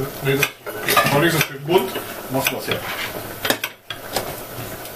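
Stainless-steel mixing bowls clinking and clattering as they are handled and set down on a wooden counter, with several sharp metal clinks.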